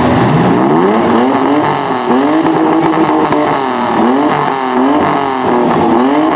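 Demolition derby mini truck engine revving hard. It climbs sharply in pitch in the first second, then surges up and down again and again as the truck drives and pushes.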